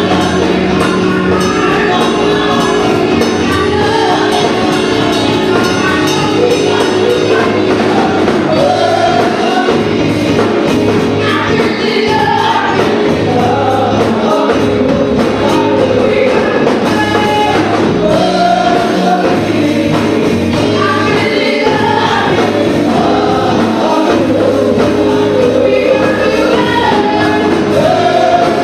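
Gospel choir singing with a live band, with percussion keeping a steady beat.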